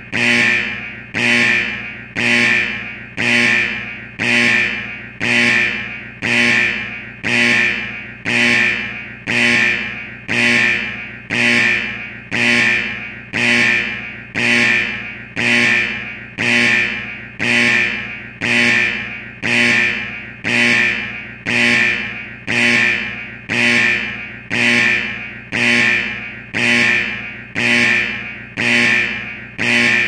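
Factory security alarm sounding continuously in the style of an old 1970s firehouse alarm: a loud tone that repeats about once a second, each ring starting sharply and fading before the next.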